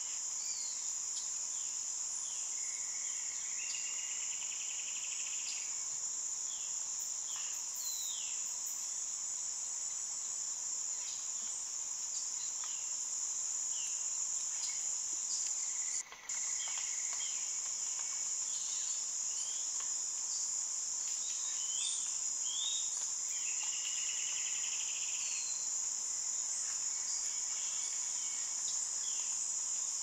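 Steady, high-pitched chorus of rainforest insects, with scattered short bird calls and a few trilling bird phrases over it. The drone breaks off for an instant about halfway through.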